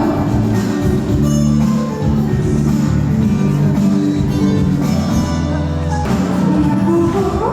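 Live pop song played by a band, at a passage where the instruments carry the music with little or no singing.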